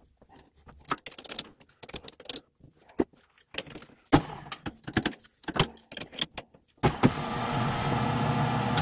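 Irregular metallic clicks and knocks as a threading die in a tailstock die holder is worked along a steel rod on a metal lathe. About seven seconds in, a motor, likely the lathe's, starts and runs steadily.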